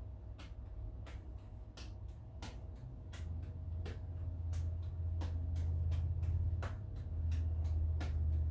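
Light-up juggling balls landing in the hands during a three-ball juggling pattern: sharp clicks at about two to three a second, over a steady low rumble that grows louder about three seconds in.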